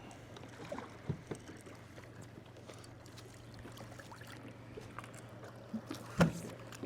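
Small fishing-boat sounds: a steady low hum with faint scattered clicks and light knocks, and one sharper knock about six seconds in.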